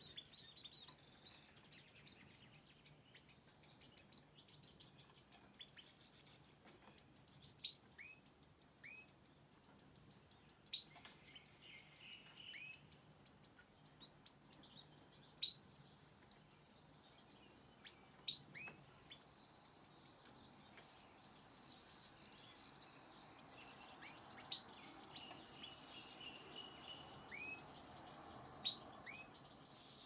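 A European goldfinch and a canary twittering and calling: a continuous rapid, high twittering song broken every few seconds by sharp, falling call notes, growing busier in the second half.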